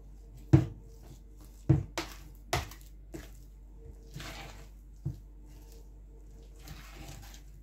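Banana bread dough being squeezed and mixed by hand in a plastic bowl, with soft squelching and several sharp knocks, the loudest about half a second in.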